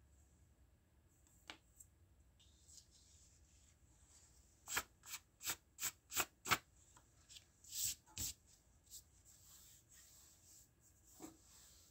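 A hand brushing eraser crumbs off drawing paper and a hardboard drawing board: a run of about seven quick dry swipes over some four seconds, with a few softer brushes after.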